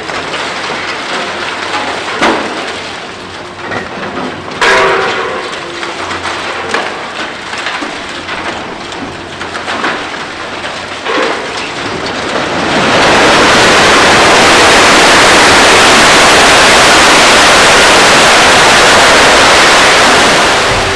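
Demolition excavator breaking up a concrete building, with crunching, clattering debris and a few sharp cracks. About 13 seconds in, a loud continuous crash of falling concrete and rubble takes over as a section of floors collapses, lasting about eight seconds before it stops suddenly.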